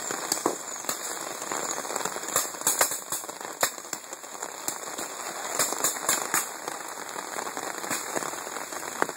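Steady rain hiss with scattered, irregular sharp pops of paintball markers firing, the loudest a few seconds in.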